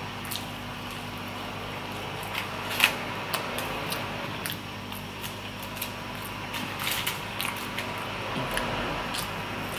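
Close-up eating sounds: chewing with wet mouth clicks and smacks while eating roast lamb ribs by hand, the sharpest smack about three seconds in, over a steady low hum.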